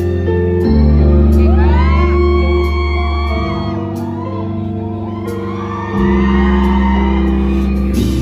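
Live band with brass and wind players holding sustained chords in an instrumental break of a ballad, the harmony shifting twice. Audience members scream and cheer over the music from about a second and a half in.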